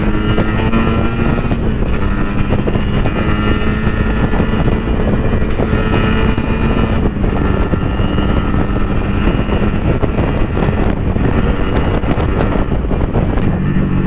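Sport motorcycle's engine running steadily at road speed, with heavy wind rush over the camera's microphone.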